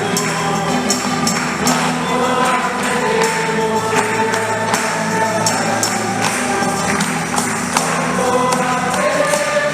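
A church hymn from a choir and its accompaniment, with a tambourine jingling a steady rhythm over long held notes.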